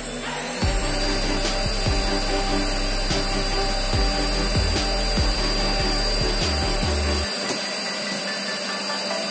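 DIY CNC router spindle spinning up, its high whine climbing for the first half second and then holding steady, with a rushing noise from the running machine. Background music plays underneath, and its bass drops out about seven seconds in.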